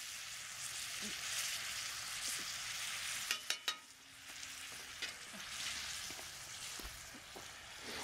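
Vegetables and kielbasa frying in a 12-inch Lodge cast iron skillet, sizzling steadily as they are stirred with a long spatula. A little past three seconds in, a few quick sharp clicks of the spatula against the pan.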